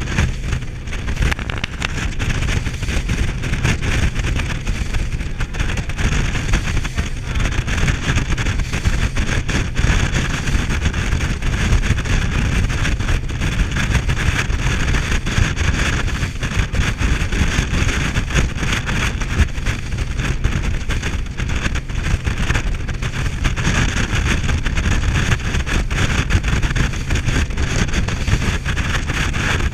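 Rigid inflatable boat running fast on open water, heard as a loud, steady rush. Heavy wind buffets the microphone over the hiss of water streaming past the hull.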